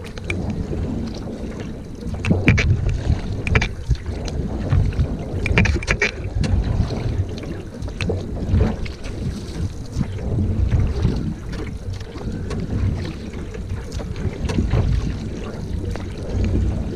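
Single-blade paddle strokes of a high-kneeling sprint canoeist, the blade splashing in and pulling through the water stroke after stroke. Wind buffeting the microphone makes a steady low rumble underneath.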